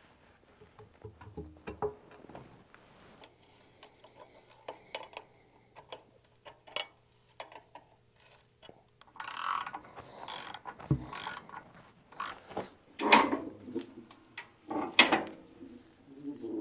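Irregular mechanical clicks and knocks, sparse at first, then louder and busier in the second half.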